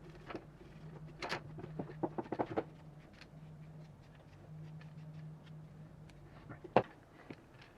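Small clicks and taps of parts being handled during a teardown, with a quick run of taps about two seconds in and one sharper click near the end, over a faint low steady hum.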